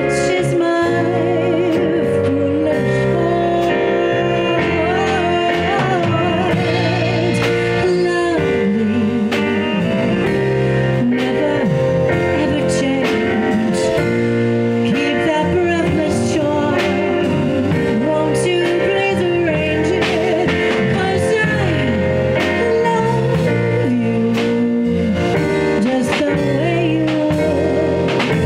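Live jazz combo playing a slow swing ballad: keyboard chords, bass and drums, with a lead melody line held with vibrato over them.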